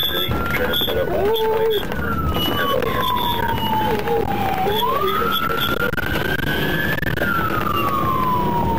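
Police car siren in wail mode, its pitch climbing and falling slowly, each cycle taking about five seconds. Steady road and engine noise of the moving squad car sits underneath.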